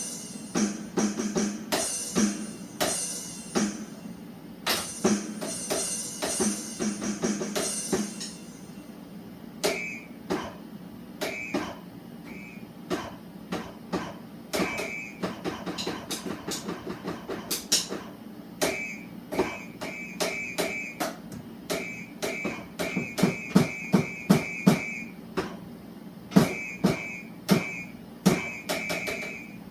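Drum beat played on a set of drum sounds: uneven runs of hits, with a cymbal-like hiss over the first eight seconds or so, then short, high, bell-like pings in quick clusters among the hits.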